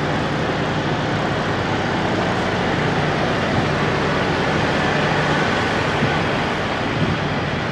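Diesel semi-trucks idling: a steady mechanical drone with a low even hum and no change in pace.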